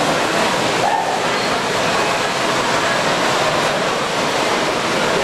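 Steady hubbub of a busy exhibition hall: many people talking at once, blending into an even wash of noise.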